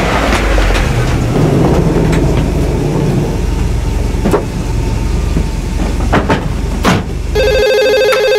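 Car engine idling with car doors slamming shut a few times. About seven seconds in, a corded push-button desk telephone starts ringing with a pulsing electronic trill.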